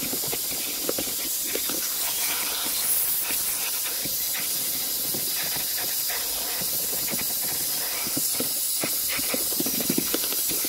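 Vacuum cleaner hose nozzle sucking over car floor carpet: a steady high hiss of air rushing into the hose, with scattered small clicks and rustles as the nozzle works the carpet.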